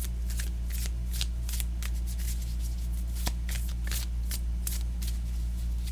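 A Universal Tarot deck of standard cardstock being shuffled by hand, a run of irregular crisp snaps and slides of the cards, over a steady low hum.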